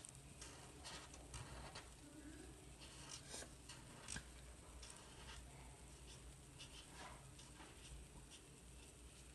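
A black felt-tip marker scratching over paper in short, irregular strokes as lines are traced, faint.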